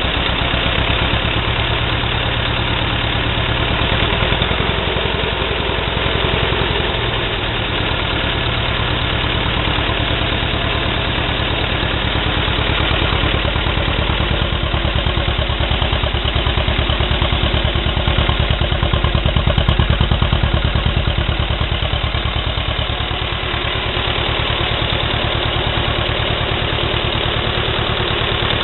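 Belarus 250AS tractor's air-cooled two-cylinder diesel running steadily at idle, just started on fresh oil after an oil and filter change. The pulse stays even, with a slight swell in level a little after the middle.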